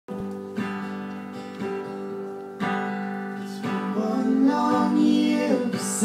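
Acoustic guitar strummed in a steady rhythm, about one strong strum a second, opening a live song. A singing voice comes in over it in the last two seconds.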